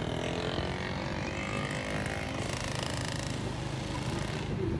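Vehicle engine running steadily while riding, with road noise, heard from on board.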